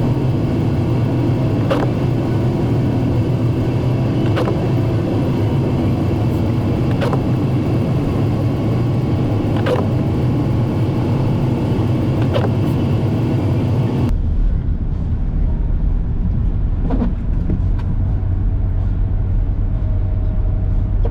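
Steady road and engine rumble of a car driving, heard from inside the cabin, with a short sharp tick every two to three seconds. About fourteen seconds in, the sound changes abruptly to a deeper, duller rumble.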